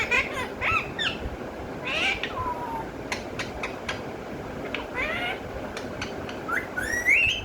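Pet parrot calling: a string of short chirps and squawks that slide in pitch, with a few sharp clicks, and a longer rising squeal near the end.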